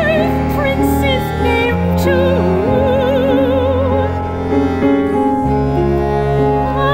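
A soprano singing operatically with a wide vibrato, in phrases, over an instrumental ensemble holding sustained low chords. The chord underneath changes about five seconds in.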